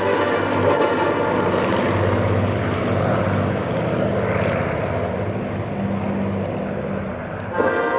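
Propeller aircraft engines droning steadily as the aircraft flies past. Near the end a different, steadier hum cuts in.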